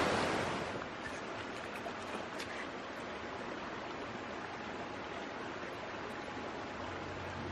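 Shallow river running over rocks: a steady rush of water, a little louder in the first second.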